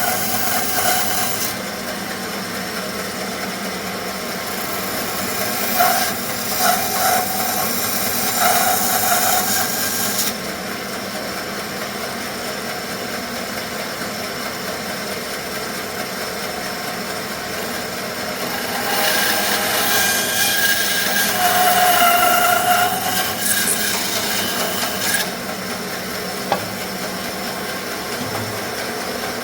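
Bandsaw running steadily, its blade cutting through thick wenge hardwood in three stretches: briefly near the start, again from about six to ten seconds in, and again from about nineteen to twenty-five seconds in. Between cuts only the saw's running hum is heard.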